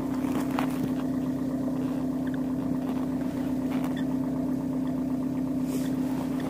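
An engine idling steadily at one even pitch, with a few faint clicks over it.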